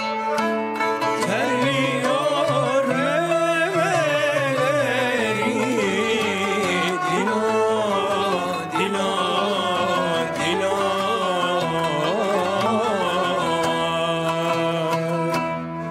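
Turkish classical ensemble music on kanun, kemençe and oud: plucked strings under a wavering bowed melody line, played as an unbroken instrumental passage.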